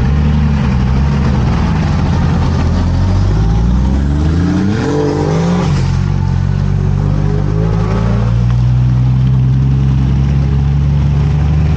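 Nissan Patrol GR Y61 engine under load off-road: a steady drone that climbs in pitch as it revs up about halfway through, then settles back to a steady pull.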